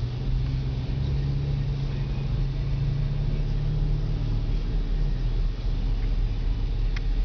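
Steady road and engine drone inside the cabin of a 2011 Chevy Equinox LT with its 2.4-litre four-cylinder, cruising at about 36 mph. A low steady hum fades about five seconds in, and a faint click comes near the end.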